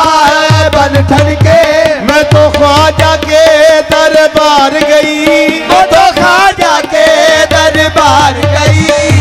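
Qawwali music: harmonium melody with ornamented, gliding lines over tabla. The tabla's low bass-drum strokes drop out for a few seconds in the middle and come back near the end.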